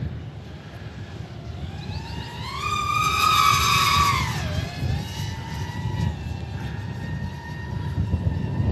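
FPV quadcopter's motors whining. The pitch climbs about two seconds in, is loudest for a second or two, drops sharply about four and a half seconds in, then settles into a steadier, lower whine as the throttle changes. Wind rumbles on the microphone throughout.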